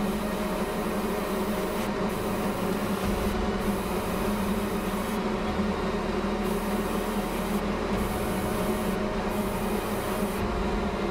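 Airbrush spraying paint onto small plastic exhaust stubs, its hiss coming in about six spells broken by brief pauses, over a steady low hum.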